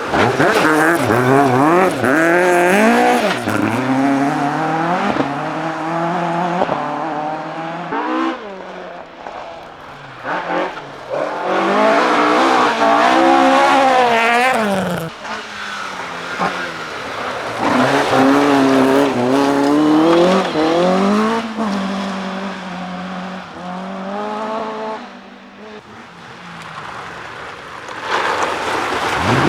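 Rally cars at full stage speed, one after another: engines revving hard, with the pitch climbing and falling sharply through quick gear changes and lifts, in several loud passes.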